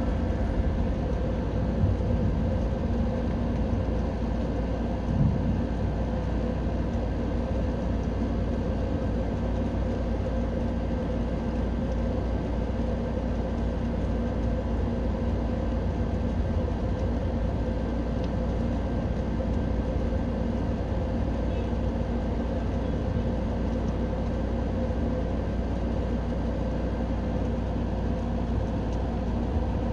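Steady mechanical hum with several constant tones over a low rumble, holding unchanged throughout; no rain or thunder stands out.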